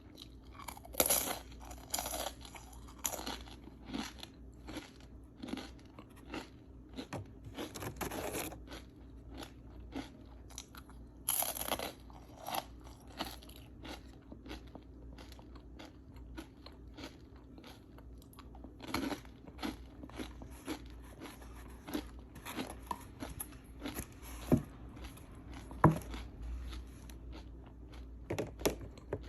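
A person biting into and chewing crunchy okra. Bursts of crisp crunching come at irregular intervals, with quieter chewing and sharp single crackles between them.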